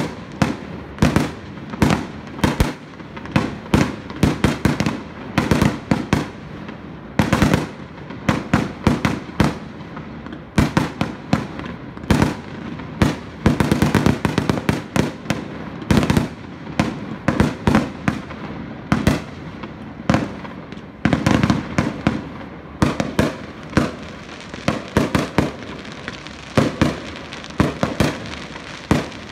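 Aerial fireworks display: a continuous run of sharp bangs and pops from bursting shells at irregular intervals, coming thick and fast about halfway through and again near the end.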